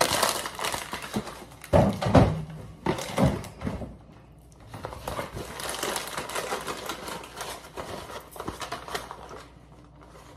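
Rustling and crinkling of a snack bag and other bags being handled, with a few knocks about two and three seconds in.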